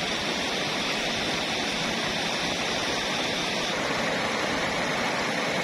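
River water rushing over rocks and small rapids: a steady hiss of white water, its tone shifting slightly a little past halfway.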